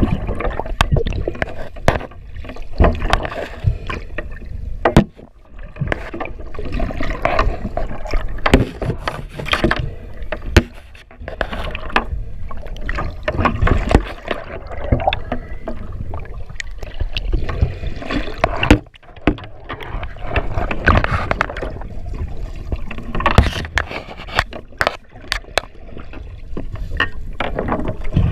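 Water splashing and sloshing, with many irregular knocks and bumps.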